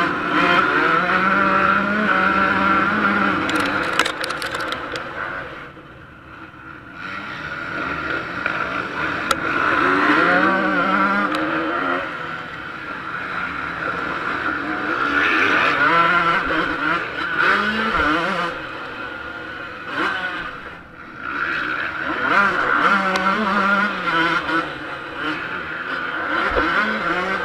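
Yamaha YZ125 two-stroke motocross engine racing at high revs, its pitch climbing and falling again and again as the rider works the throttle and gears. The throttle comes off sharply twice, about six seconds in and about twenty seconds in, before the engine pulls hard again.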